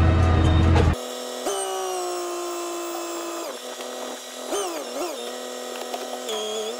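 Tractor engine rumbling, heard from inside the cab, for about a second, then a steady mechanical whine from the tractor running its hydraulics to raise a tipping trailer's body, the pitch wavering and dipping a few times.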